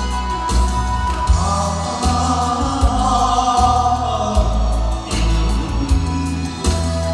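Live trot song through stage speakers: a man singing into a microphone over a backing track with a steady bass beat, with others on stage singing along.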